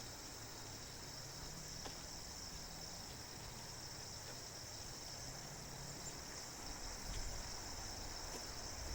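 Crickets chirping steadily in a high, even band, with a faint low hum underneath.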